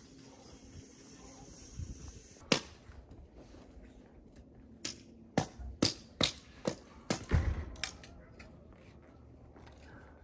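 A sharp knock, then from about five seconds in a run of about seven more sharp knocks at uneven spacing.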